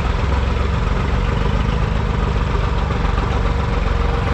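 Diesel engines of a Swaraj 855 and a New Holland tractor running steadily while the two tractors pull against each other in a tug-of-war.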